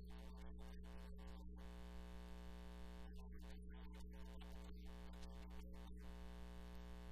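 Faint, steady synthesizer music.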